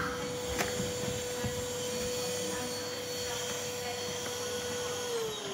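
Numatic Henry Xtra cylinder vacuum cleaner running on its high-speed setting: a steady motor whine over the rush of air. Near the end the whine starts to fall in pitch as the motor winds down.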